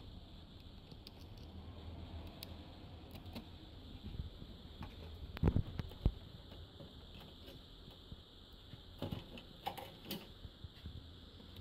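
Handling noise from hands working on an opened LED TV panel: small scattered clicks and rustles, with two dull thumps a little past halfway and a short run of clicks near the end.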